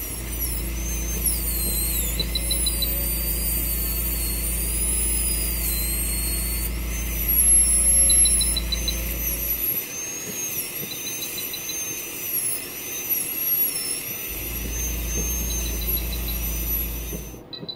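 High-speed dental handpiece (air-turbine drill) whining at a very high pitch, its pitch wandering and dipping as it cuts into the dog's abscessed tooth. A steady low hum runs beneath and drops out for a few seconds in the middle, and short bursts of rapid high beeps come now and then.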